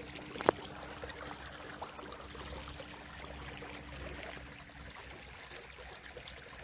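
Shallow water trickling along a narrow irrigation channel beside rice paddies. A faint steady hum fades out about five seconds in, and one sharp click comes about half a second in.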